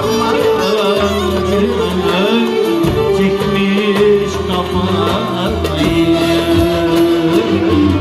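Turkish folk music played live: a male singer with an ensemble of violins and bağlama, sustained wavering melody lines over plucked strings.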